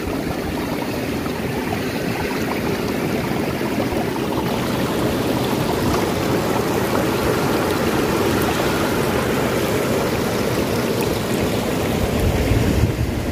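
Steady rushing of water and venting steam at a geothermal field: a hot sulphur stream running over rocks, then steam hissing from fumaroles. Wind buffets the microphone near the end.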